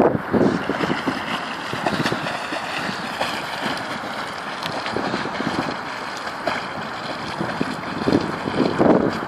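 English springer spaniel paddling through lake water, splashing irregularly.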